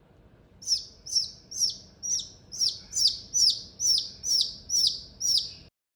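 A newly hatched chick peeping: a steady series of about eleven high, downslurred peeps, roughly two a second, cut off abruptly near the end.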